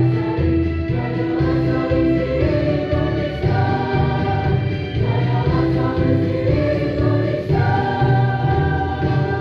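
Choir singing together in held chords that shift every second or two, over a steady low bass accompaniment.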